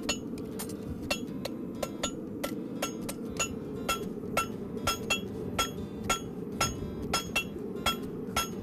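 Blacksmith's hammer striking hot steel on an anvil in a steady rhythm, about three ringing blows a second, as a horseshoe heart bar is forge-welded and drawn out in a single heat. A steady low rumble runs underneath.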